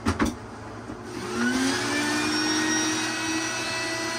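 Two sharp knocks, then a wet/dry shop vacuum switches on about a second in: its motor whines up in pitch and settles into a steady run.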